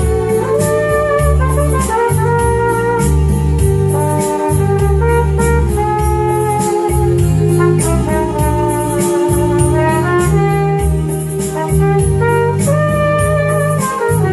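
Flugelhorn playing a slow, smooth melody of long held notes over an electronic keyboard backing with a stepping bass line and a steady drum beat.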